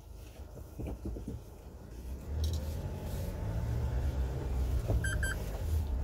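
Truck engine and road rumble heard from the vehicle as it climbs a steep narrow lane, the low rumble growing stronger about two seconds in. A brief high double beep sounds near the end.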